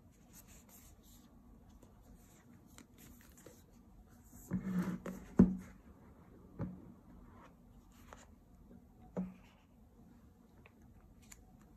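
Hands handling a cardboard iPhone box: faint rubbing and sliding of fingers on the box, then a cluster of soft thumps about halfway through with one sharper knock, the loudest sound, as the box is set down on the table. A couple of softer single taps follow while the lid is lifted off.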